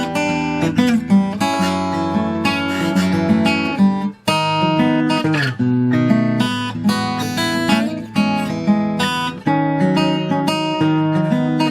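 Morris W20 steel-string acoustic guitar being played: a run of chords and picked notes that change pitch, with a brief break a little over four seconds in and a sliding note shortly after.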